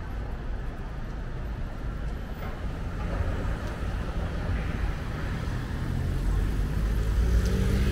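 City street traffic: a steady low rumble of vehicles that grows gradually louder toward the end as a vehicle draws near.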